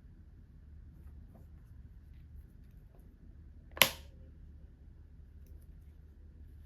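A single sharp click a little under four seconds in, over a faint low hum and a few soft taps.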